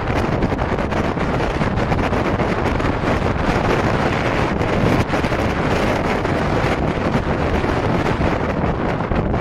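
Strong storm wind on a mountain summit blowing hard and steadily, buffeting the microphone.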